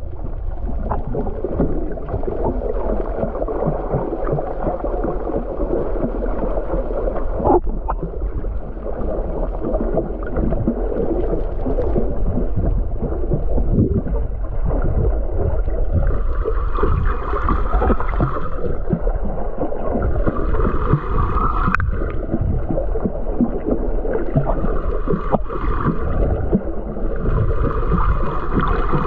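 Underwater recording: a steady low rush of water noise with the hum of a boat motor carried through the water. From about halfway through, the motor's tone wavers up and down in a repeating sweep every few seconds.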